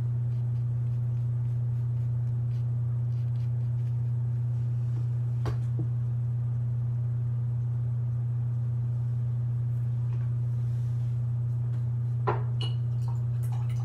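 Steady low electrical hum with fainter overtones, unchanging throughout. A couple of faint clicks sit on top of it, the louder one near the end.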